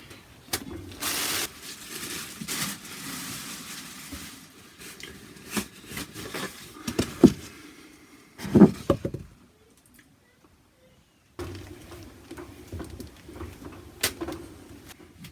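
Paper towels rubbing and wiping around the inside of a washing machine drum, with scattered clicks and a couple of louder knocks of handling.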